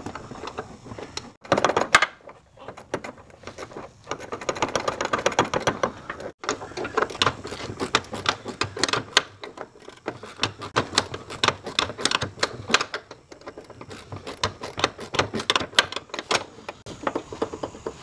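Ratchet wrench clicking in quick runs with short pauses as it drives a door-hinge bolt in.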